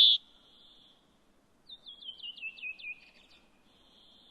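A loud steady high tone cuts off right at the start. Then, about two seconds in, a small bird sings a quick run of about seven chirping notes, each sliding down, the run stepping lower in pitch over about a second.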